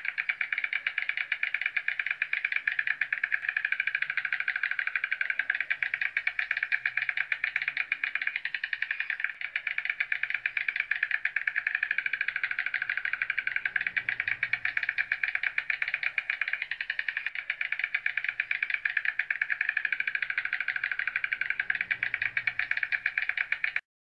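White stork clattering its bill: a fast, continuous rattle of clicks that stops abruptly near the end.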